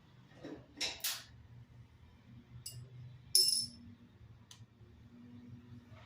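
Small metal clinks and taps from handling screws and tools while taking the dryer apart, about half a dozen separate hits, the loudest about three and a half seconds in with a brief high ring.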